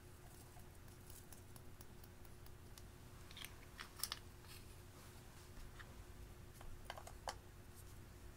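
Faint light clicks and taps of small plastic makeup containers being handled, with a sharper double click about four seconds in and two more clicks near the end.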